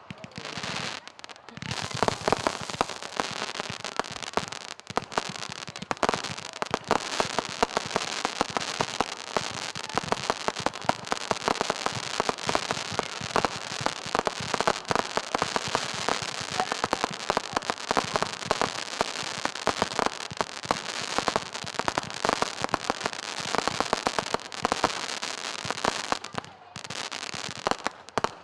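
Fireworks crackling: a dense, rapid run of sharp pops and crackles that starts after a short pause and breaks off briefly near the end.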